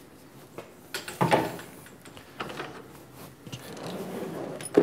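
Metal clunks and scraping from a lathe's quick-change tool post as its locking lever is worked and the toolholder is swung round. There are several separate knocks, the loudest about a second in and another sharp one at the very end.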